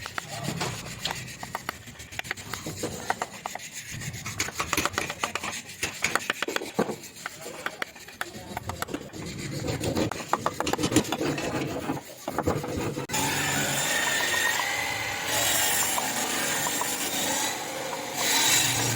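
Wood being carved by hand: a tool scraping and rasping across the wood in quick, irregular strokes. About two-thirds of the way in the sound turns into a steadier, denser hiss with a faint whine.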